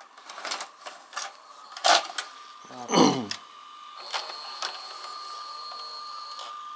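VHS deck of a Philips DVD/VCR combo, its cover off, taking in a cassette: clicks and clunks from the mechanism, a loud falling whir about three seconds in, then a steady high motor whine as it threads and runs the tape.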